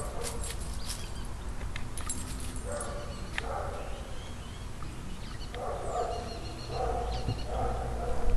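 Goldendoodle making short dog vocal sounds in a few brief bursts: two about three seconds in, then three close together in the last three seconds.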